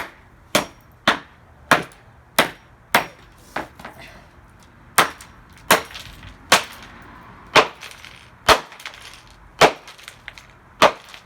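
Hammer blows striking the plastic pieces of a Dreamsky DS206 alarm clock radio, about one sharp hit a second, with a short clatter after some strikes.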